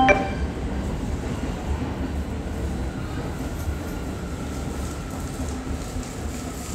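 Four-car Sagami Line local train rumbling as it pulls into the platform, a faint steady whine joining about three seconds in. The last ring of the platform chime dies away at the very start.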